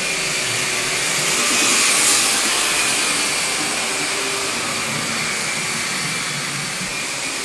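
Power tool at building works running without a break: a steady high whine over a loud rushing noise, swelling slightly about two seconds in.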